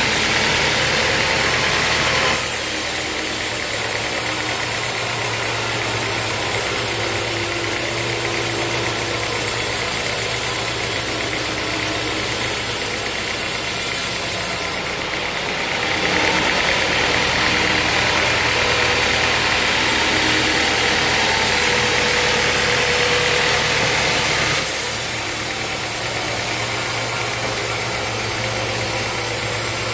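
Band sawmill machinery running with a steady drone and hiss. The sound changes abruptly about two seconds in, again about halfway, and again near the end.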